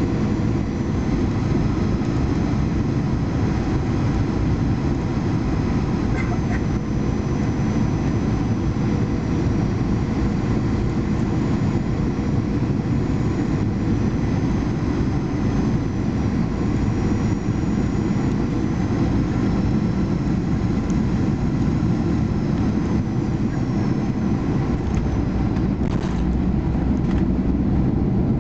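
Cabin noise inside a Boeing 737-800 on final approach: its CFM56-7B turbofans and the airflow make a steady low rumble, with faint thin whines above it.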